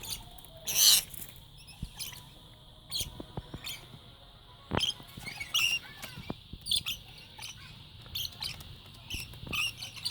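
Rainbow lorikeets making short, high-pitched chirps and squeaks, with scattered clicks and scratches and a short, loud noisy burst about a second in.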